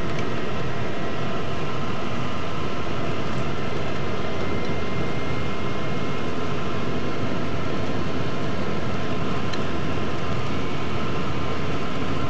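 Steady drone of a moving vehicle heard from inside: even road and engine noise with a faint steady whine, unchanging throughout.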